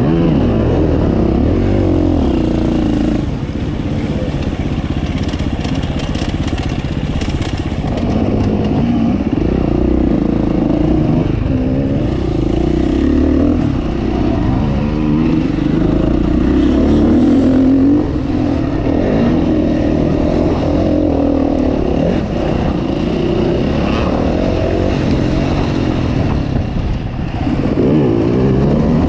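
KTM 350 four-stroke enduro motorcycle engine being ridden hard, its pitch rising and falling constantly as the throttle is opened and closed, with short drops in loudness where the rider backs off, about three seconds in, midway and near the end.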